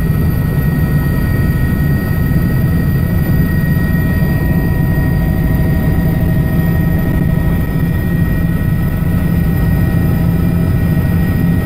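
Helicopter engine and rotor running steadily, heard from inside the cabin: a loud, even low drone with several steady high whining tones over it.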